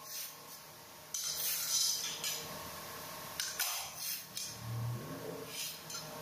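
Hand tools at work laying ceramic floor tiles: a scraping rush about a second in, then a few short clinks and knocks.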